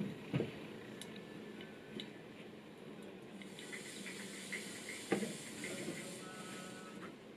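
Silicone spatula pressing and scraping wet soy pulp against a fine stainless-steel mesh strainer, with soy milk trickling through into a glass cup below. Two soft knocks, one about half a second in and one about five seconds in.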